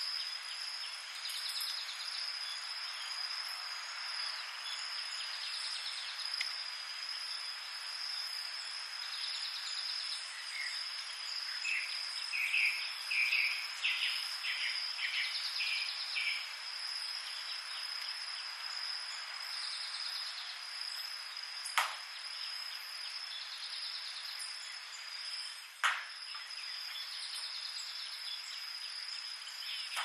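Tropical night-insect chorus: a steady high shrill with a pulsing insect trill coming back every four or five seconds. A bird calls in a short run of notes a little before the middle, and two sharp clicks come in the second half.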